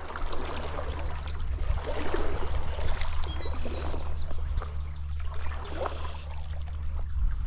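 Stream water running and splashing, a continuous rushing hiss with a steady low rumble beneath it.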